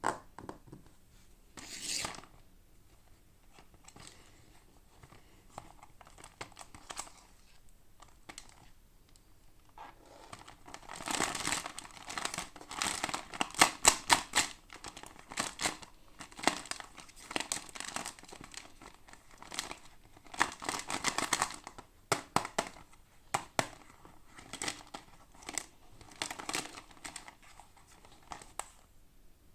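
Toy packaging being opened by hand: wrapping tearing and crinkling in irregular short bursts, sparse at first and busiest through the middle.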